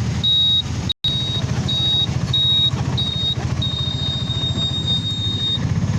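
Low vehicle engine and road rumble with a run of high-pitched electronic beeps over it: five short beeps, then one long beep lasting about two seconds.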